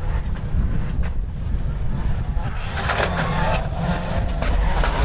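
Rally car engine revving hard as the car comes up a gravel stage, its engine note building from about halfway through over a steady low rumble.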